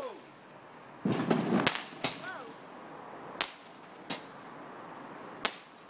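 Fireworks going off: five sharp bangs over about four seconds, the first two close together and the rest spaced out.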